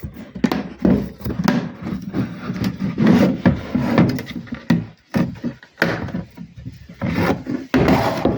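Plastic front of a fridge crisper drawer being pressed back onto the drawer by hand: an irregular run of clicks, knocks and rubbing as its snap clips are pushed home.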